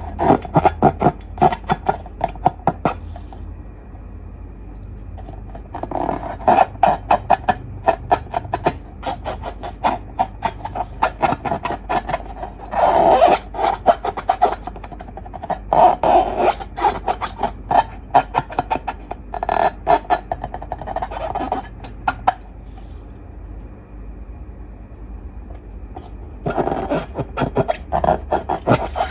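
Slime and long balloons being handled, in bursts of rubbing and dense crackling. The handling comes in spells of a second or a few seconds with quieter gaps between them, over a steady low hum.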